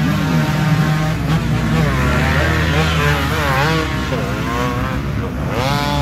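Dirt bike engines revving hard over a steady low running note, their pitch rising and falling again and again as the rear wheels spin in deep mud with the bikes bogged down.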